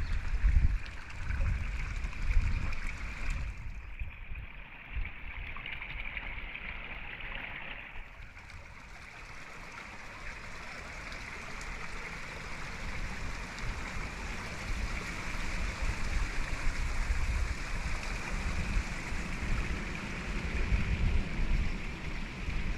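Wind gusting against the microphone in uneven low rumbles, over a steady rushing hiss.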